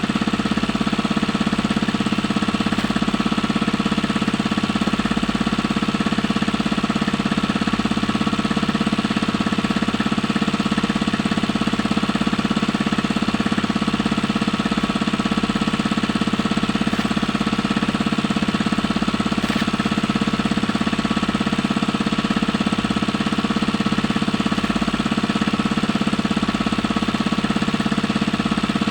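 Small engine running steadily at a constant speed, with a rapid, even knocking beat.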